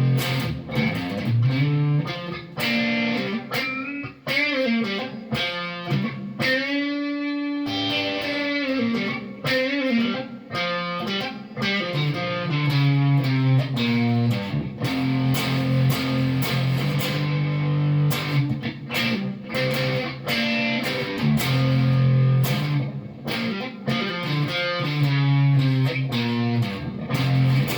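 Electric guitar, a Xavier PRO830 Telecaster-style with the neck GFS humbucker and bridge pickup selected together, played through a Marshall Origin amp: chords and picked single notes, with one held note wavering in pitch about seven seconds in.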